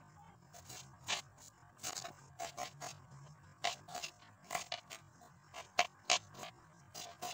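Kitchen knife dicing a red onion on a chopping board: crisp crunching cuts through the onion and knocks of the blade on the board, irregular, about two or three a second.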